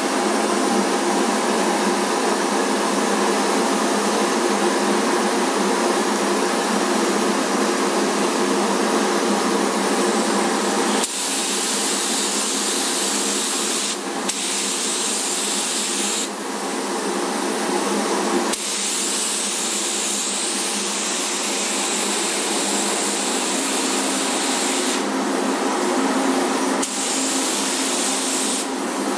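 Paint booth air and fans rushing steadily. Over them, the hiss of a gravity-feed spray gun spraying paint comes and goes several times from about ten seconds in, as the trigger is pulled and released.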